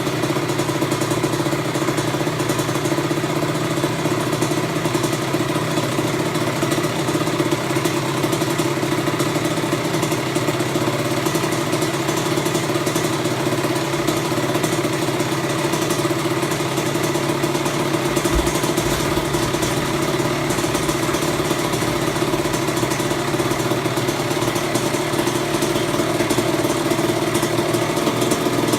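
Kawasaki KX100's freshly rebuilt two-stroke single-cylinder engine idling steadily at an even pitch.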